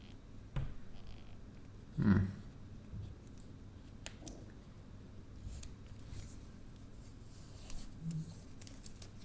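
Small handling sounds of a smartphone and its protective plastic film: scattered light clicks and rubs, with one brief louder bump about two seconds in.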